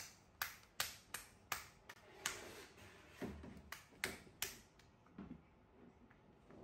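A quick run of about ten sharp taps or slaps, roughly two or three a second, stopping about four and a half seconds in.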